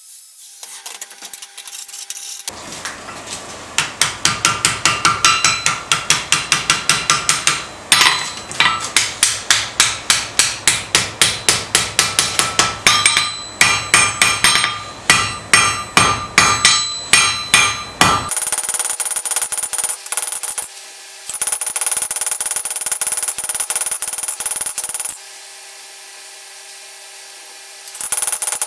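Hand hammer striking red-hot steel plate on an anvil in a long steady series of blows, about three a second. After the blows stop there is a steadier hum with a couple of brief drops.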